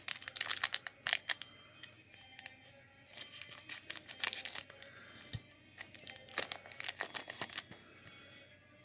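Trading-card pack wrappers crinkling and tearing as packs are opened and the cards are handled, a busy run of crackling rustles that stops about 7.5 seconds in.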